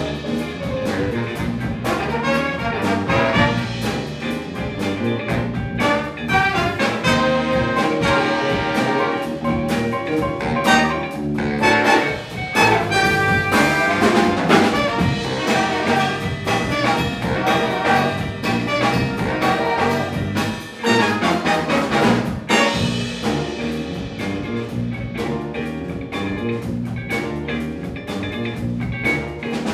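Live jazz ensemble playing: a horn section of trumpets, trombones and saxophones over electric guitar, electric bass, piano and drum kit.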